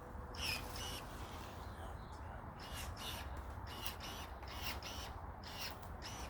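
Pruning shears snipping cannabis stems and branches at harvest: about ten short, crisp snips, several in quick succession in the second half, over a low steady rumble.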